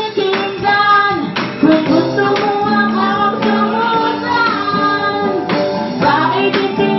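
Amateur live band performing a song: a woman singing into a microphone over strummed acoustic guitar, with an electronic drum kit marking a steady beat.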